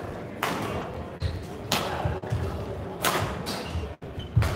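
Badminton doubles rally: rackets striking the shuttlecock several times, with players' footsteps thudding on the court mat and voices murmuring in a large hall.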